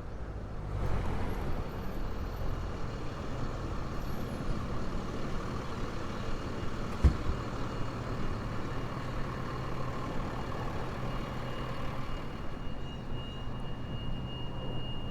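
Street traffic with a motor vehicle engine running steadily close by. A single sharp knock comes about seven seconds in, and a thin high whine joins near the end.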